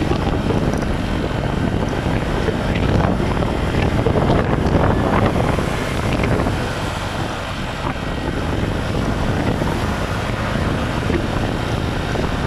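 Steady wind rush on the microphone of a phone mounted on a moving motorcycle, with engine and road noise underneath.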